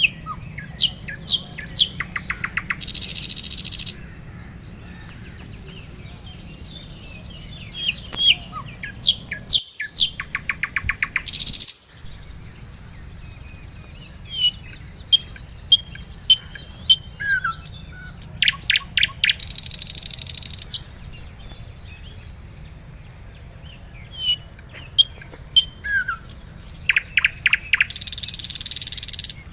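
A songbird singing the same phrase about four times: a run of sharp chirps and quick trills ending in a harsh rasp about a second long. A steady low rumble runs underneath.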